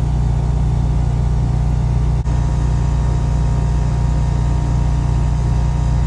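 Steady machine drone of a 3-ton Goodman air conditioner condenser running, its compressor and fan started through an ICM870-16A soft start, mixed with a 6300-watt Craftsman portable generator's engine running under the load.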